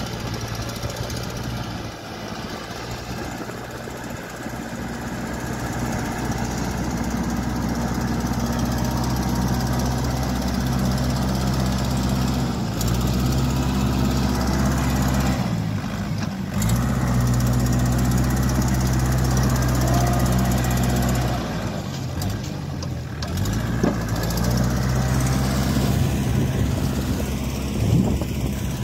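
Kubota L4508 tractor's diesel engine running hard under load in deep mud. Its speed rises and falls and dips briefly twice, about two thirds of the way through and again a few seconds later.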